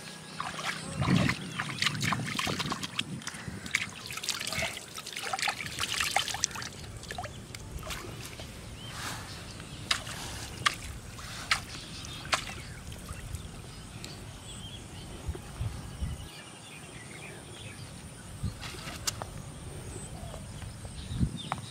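Small splashes, drips and trickles of shallow pond water as a hand dips into and flicks at the surface. The splashes are densest in the first half and sparser later.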